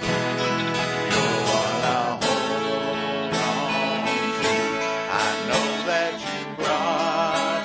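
Live worship band playing a song: strummed acoustic guitar with voices singing over it.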